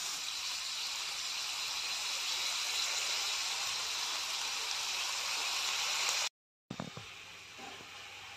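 Chopped onion, tomato and green chilli frying in a non-stick pan, giving a steady sizzling hiss. About six seconds in the sound cuts off abruptly, then comes back quieter with a single low knock.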